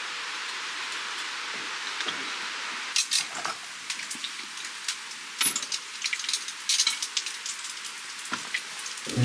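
Wood fire crackling in a small wood-burning stove: irregular sharp crackles and pops over a steady hiss, the crackles starting about three seconds in.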